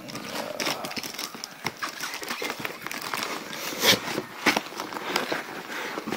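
Plastic wrapping crinkling and a cardboard box rustling as an amplifier is handled, with irregular clicks and knocks; the loudest knock comes about four seconds in.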